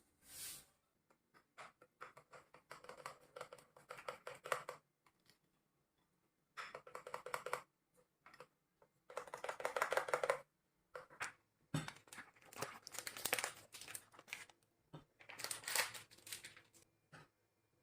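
Crinkling and rustling, as of something being handled, in about six bursts with short pauses between them.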